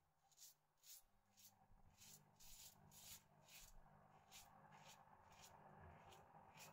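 Double-edge safety razor with a Gillette 7 O'Clock blade scraping through lathered, fairly long beard stubble in short quick strokes, about two a second, each a faint rasp.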